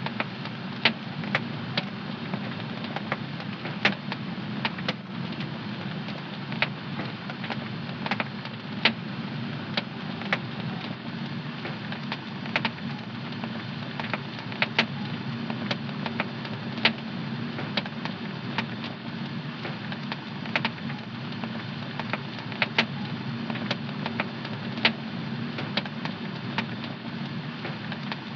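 Fire burning in a home fireplace: a steady low rush of flame with irregular sharp crackles and pops, several a second.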